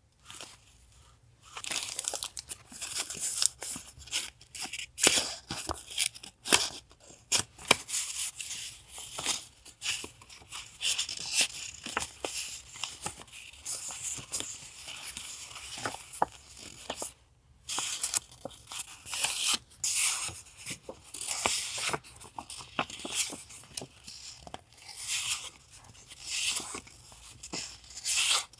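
Paper being torn and handled: a long run of short rips and crinkles, with a brief pause about seventeen seconds in.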